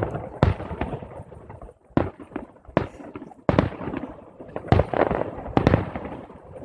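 Fireworks bursting: about six sharp bangs, unevenly spaced, each trailing off in an echoing rumble.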